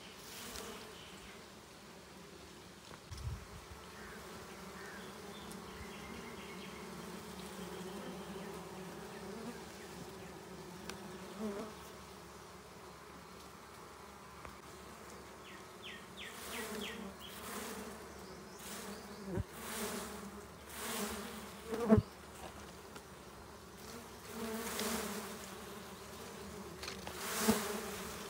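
A cluster of dwarf honey bees buzzing steadily as a low hum over their open comb. In the second half come several short rustling swells and a few sharp knocks, the loudest a little past the middle.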